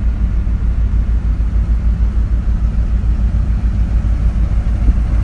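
Houseboat engine running steadily: a loud low rumble with a fast, even throb.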